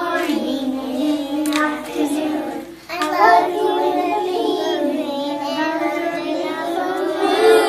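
A group of preschool children singing a song together, with a short break a little under three seconds in.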